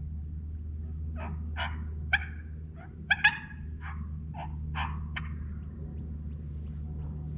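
Turkey call being cut: a string of about ten sharp, erratic clucks and cuts over roughly four seconds, a few of them loud. It is a hen-turkey imitation meant to make a gobbler answer.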